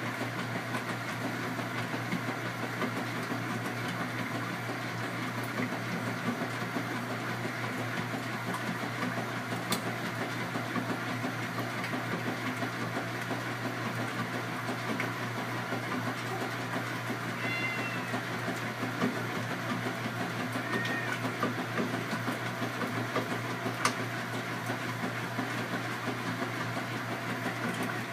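Washing machine running with a steady hum. A cat meows briefly twice about two-thirds of the way through.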